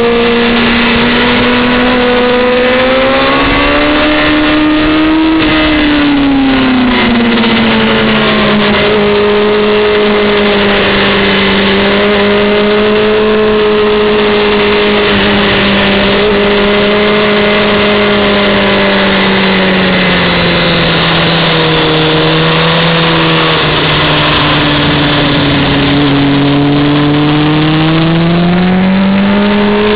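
Honda CBR600F4i's inline-four engine pulling hard on track, with wind rushing past the onboard microphone. Its pitch climbs about four seconds in, drops back around six, holds fairly level, sags through the early twenties and climbs again near the end.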